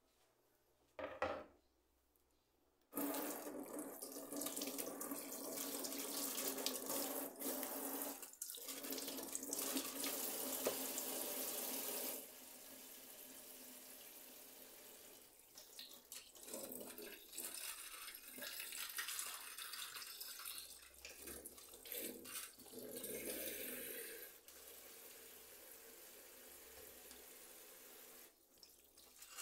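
Kitchen sink tap running. After a brief clatter about a second in, water pours at full flow for about nine seconds, then runs quieter and more unevenly, splashing as things are held under it.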